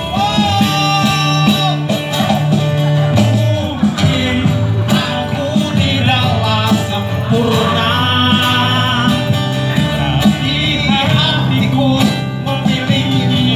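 Live male singing into a microphone, backed by a guitar and a steady cajon beat.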